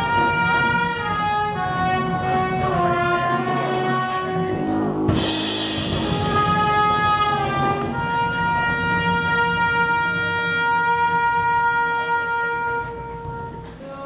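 Live band with a brass section of trumpets and trombones playing a slow melody in held notes over drums. A cymbal crash comes about five seconds in, then the horns sustain one long chord that dies away near the end.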